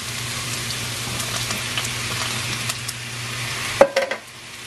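Seasoned chickpeas sizzling in a hot pan as canned ackee is tipped in and stirred, with scattered small ticks of spattering. Near the end a single sharp knock with a brief ring, after which the sizzle drops quieter.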